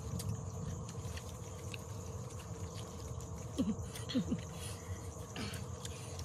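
Forest ambience with a steady insect drone and faint clicks of a knife cutting into a boiled pig's head. Two short, low, falling calls from an animal come about three and a half and four seconds in.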